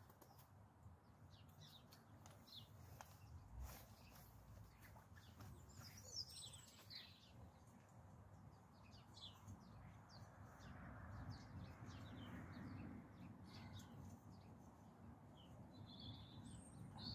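Faint outdoor ambience: small birds chirping every now and then over a low steady rumble, with a few soft clicks.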